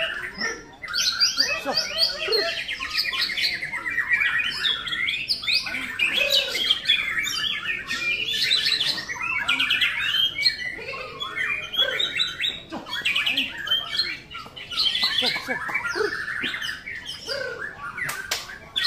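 Several white-rumped shamas (murai batu) singing at once. Their varied, overlapping phrases of whistles and rapid trills run on without a break.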